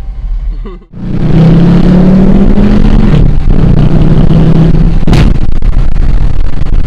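Dodge Charger R/T's V8, fitted with a cold air intake, accelerating hard. It comes in loud about a second in, and the engine note climbs and briefly breaks twice, at about three and five seconds, at the gear changes.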